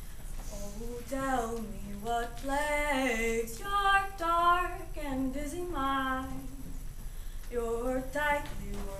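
A woman singing unaccompanied, slow held notes that slide between pitches, in a long phrase and then a short one after a pause of about a second.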